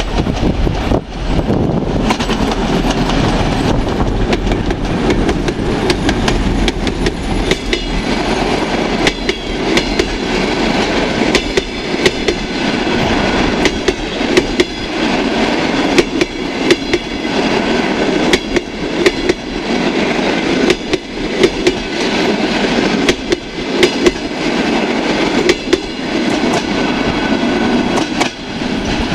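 Passenger train rolling past, its carriage wheels clicking again and again over the rail joints above a steady rumble.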